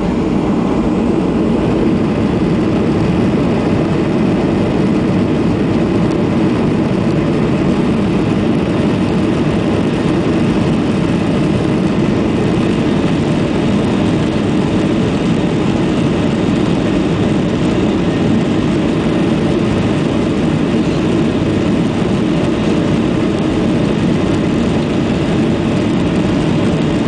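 Boeing 737-800's CFM56 jet engines running, heard inside the passenger cabin as a steady noise while the airliner rolls along the ground.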